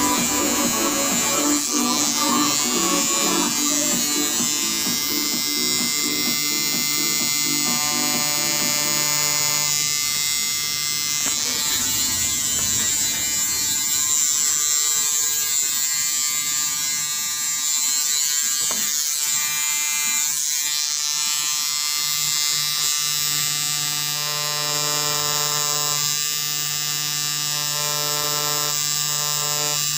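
Tattoo machine buzzing steadily while lining in black ink on an EVA foam practice sheet.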